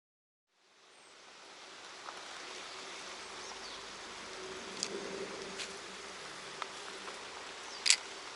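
Outdoor ambience fading in from silence, with an insect buzzing past around the middle and a few sharp ticks, the loudest one near the end.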